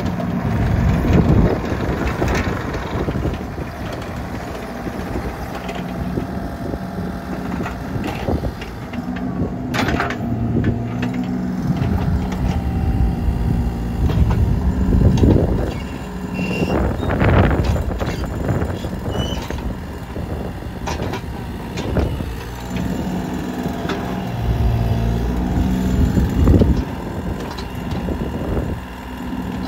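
2021 Bobcat E35i mini excavator's diesel engine running while the boom, arm and swing are worked hydraulically. The engine note swells and eases repeatedly as the hydraulics take load, with a few sharp knocks.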